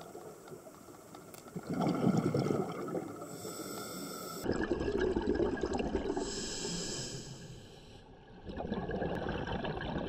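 Scuba diver breathing through a regulator underwater: the bubbling rush of each exhale alternates with the regulator's hiss on each inhale, about three breaths.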